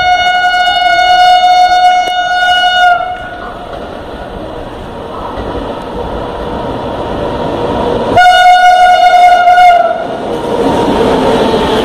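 WAP-7 electric locomotive at the head of the Duranto express sounding its horn: one long steady blast that ends about 3 seconds in, then a second, shorter blast about 8 seconds in. Under and after the blasts the train's running noise builds into a rushing roar as it comes through the station at speed without stopping.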